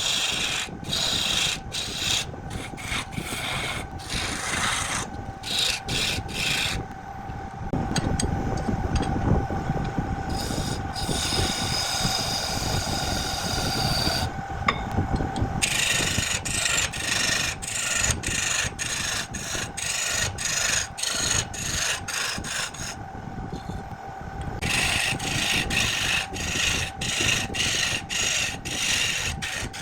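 Wood lathe running with a turning tool scraping against the spinning wood: a rasping sound that pulses about twice a second over a steady hum. The rasping strokes ease off in the middle, leaving mostly the hum.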